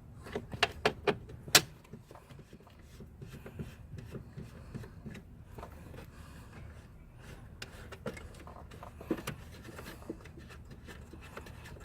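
Small sharp clicks and taps of tools and screws on plastic interior trim, a quick run of them in the first second and a half and a few more around nine seconds, between stretches of faint scraping and handling.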